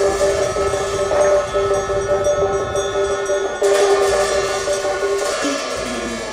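Tibetan Buddhist ritual music: long, steady horn-like tones on two pitches, with a damaru hand drum and hand bell being played. The tones break off briefly about three and a half seconds in, then resume and drop to a lower pitch near the end.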